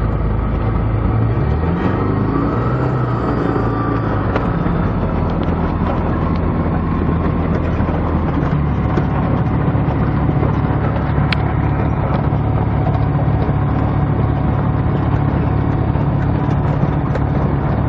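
Roko Aero NG-4's Rotax 912 four-cylinder engine and propeller running at low power while the light aircraft taxies, heard from inside the cockpit. The engine note rises briefly about two seconds in and shifts again about eight and a half seconds in as the throttle is moved.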